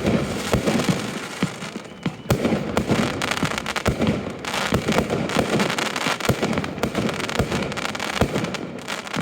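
Fireworks display going off: a loud bang, then a dense, fast run of bangs and crackling reports.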